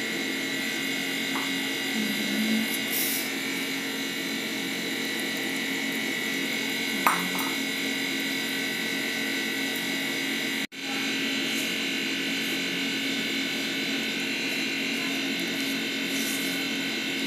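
A steady mechanical hum, like a small electric motor running, with a faint click about seven seconds in and a brief dropout a little past halfway.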